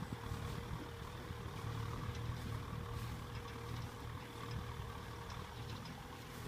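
Kubota M6040SU tractor's diesel engine running steadily under load while pulling a disc plough through dry soil, a steady low hum.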